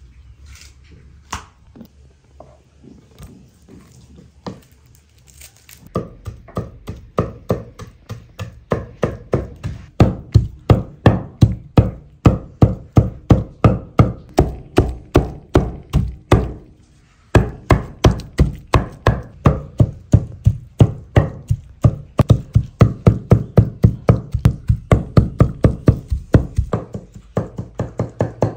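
Food being chopped by hand: a blade striking a board in steady strokes, about two to three a second. A few scattered knocks come first, the steady chopping starts about six seconds in, and it pauses briefly past the middle.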